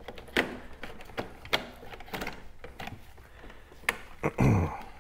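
Irregular sharp plastic clicks and snaps as the Honda Gold Wing's center dashboard panel is pulled straight up and its tab lets go. A short low grunt about four and a half seconds in.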